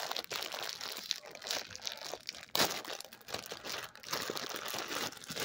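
Clear plastic packaging of a pair of slipper socks crinkling and crackling as it is handled close to the microphone, with a louder crunch about two and a half seconds in.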